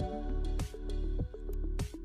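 Background music with a steady beat, about one and a half to two beats a second.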